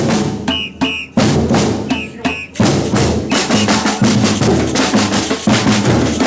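Batucada samba percussion ensemble playing: deep bass drums and snare drums. Twice in the first couple of seconds the drums drop out briefly for a few short high notes, then the full group comes back in and plays on steadily.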